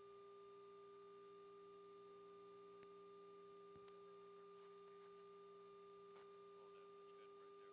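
Near silence: a faint steady electrical hum made of a few pure tones held level, with no other sound.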